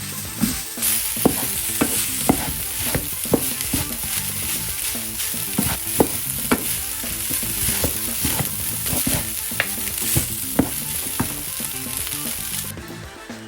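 Food sizzling in hot oil in a pan while a utensil stirs it, with frequent irregular clicks and taps of the utensil against the pan. The sizzle cuts off suddenly near the end, leaving only the taps.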